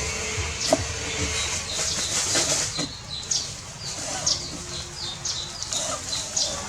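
Small birds chirping in short, high, downward-sweeping calls that repeat throughout, over a low, noisy background.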